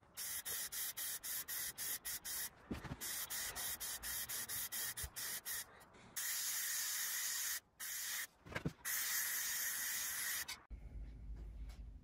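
Aerosol spray paint can with a trigger grip spraying paint onto a metal license plate: many short, quick bursts of hiss, then two longer sprays of a second or two each. A low knock or two sounds between the sprays.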